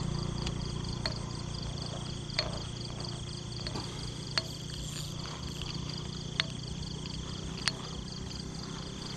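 Night ambience of insects trilling, a steady fast pulsing high chirr, over a low hum. A handful of small sharp clicks are scattered through it.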